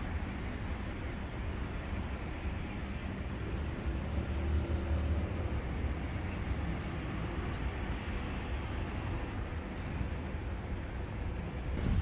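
Steady low rumble of city road traffic, swelling slightly about four seconds in.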